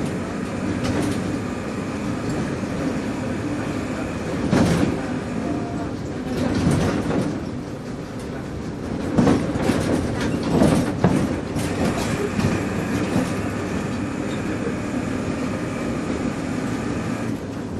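Inside a moving bus: the engine runs steadily while the bus body rattles and clatters, with a run of louder jolts and bangs over bumps from about four and a half seconds to about twelve seconds in.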